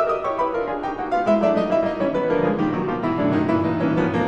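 Background piano music: a quick run of notes stepping down in pitch, with lower notes coming in about a second in.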